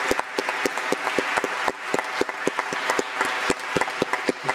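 Audience applauding: many people clapping at once in a dense, continuous patter.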